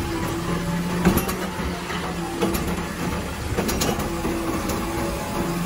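Automated side-loader garbage truck running with its gripper arm raised, tipping a wheelie bin into the hopper: a steady hum from the engine and hydraulics, with a few sharp clicks and knocks.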